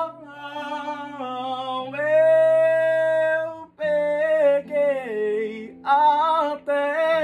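Singing without words: long held notes and sliding vocal runs, with short breaks between phrases. Under the voice runs a backing track of steady, sustained low notes that change about every two seconds.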